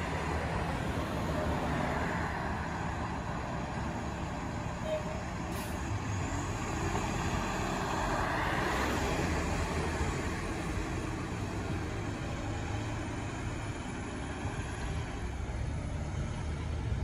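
City bus engine running steadily at a stop, with street traffic around it and a car passing close by about eight seconds in.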